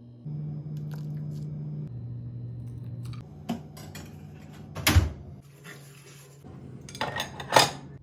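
Dishes and kitchen utensils clattering, with several sharp knocks. The loudest come about five seconds in and again near the end, over low held tones that change pitch every second or two.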